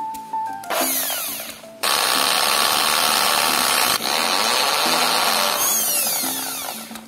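Electric drill boring out the rivet in the metal base of a Hot Wheels diecast toy car. The drill starts about a second in, runs loudly for several seconds as the bit cuts through the metal, and winds down near the end with a falling whine. Background music plays underneath.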